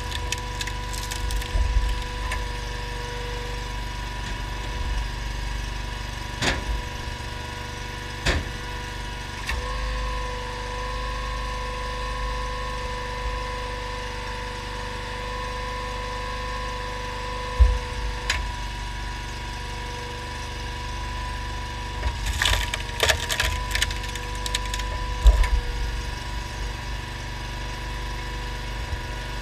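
Honda GX690 V-twin engine running steadily, driving a homemade hydraulic log splitter, with a steady hum whose pitch shifts slightly midway. Over it, logs crack and split under the ram, with sharp cracks and knocks of wood several times and a cluster of them near the end.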